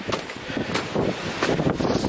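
Wind gusting across the microphone, with a few footsteps crunching through snow.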